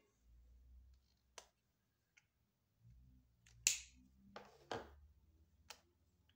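Faint off-camera handling noise: a few separate sharp clicks and taps. The loudest comes about three and a half seconds in, with a short cluster just after it.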